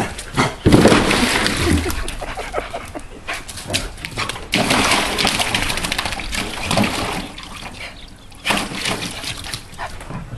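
A dog splashing and sloshing water in a plastic paddling pool, with scattered knocks and scuffs.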